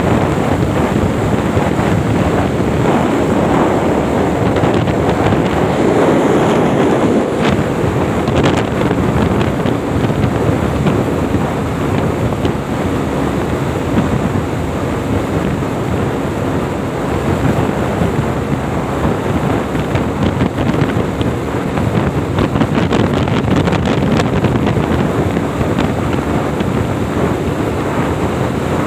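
Wind rushing loudly over the microphone, with a motorcycle engine running underneath at a steady cruising speed of around 110–118 km/h.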